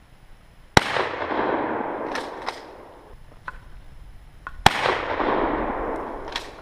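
Two shotgun shots about four seconds apart, each followed by a long echo rolling back off the surrounding hills, with a few short clicks in between.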